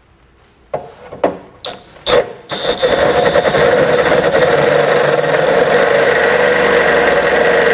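A few light knocks. Then, about two and a half seconds in, a power drill starts and runs steadily under load, boring out an existing hole in the vehicle's frame to about 1 1/4 inch, and stops near the end.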